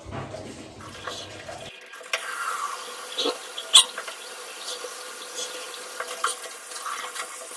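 A toothbrush scrubbing teeth, then from about two seconds in a bathroom tap running into the washbasin as the mouth is rinsed. There are two sharp knocks against the sink partway through.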